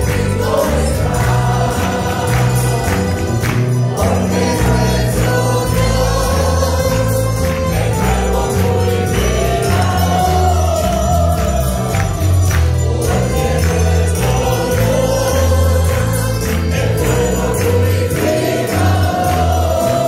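A church choir and congregation singing a Spanish worship song in unison with a live band of guitars and mandolins, a pulsing bass line and a steady percussive beat.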